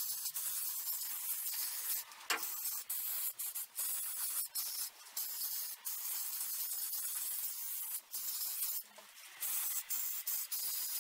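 Aerosol spray can hissing steadily while spraying protective insulating lacquer over a drone's electronics. The hiss breaks off briefly three times, about two, five and eight seconds in.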